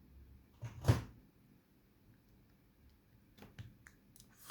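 Hook pick and tension wrench working the pins of an Abus Titalium 64/40 padlock: one sharp click about a second in, then a few faint light ticks near the end.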